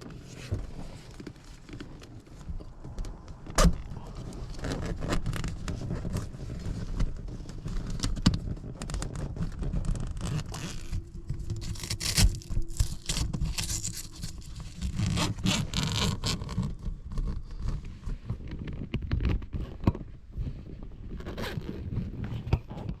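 Zip of an MG TF soft top's rear plastic screen being worked open by hand: a long run of scraping and rasping with many small clicks and a few sharper knocks as the zip and the stiff hood material are pulled.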